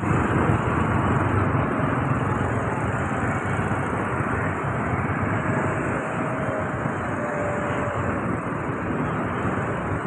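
Street traffic, mostly motorbike engines running close by, easing off slightly over the stretch.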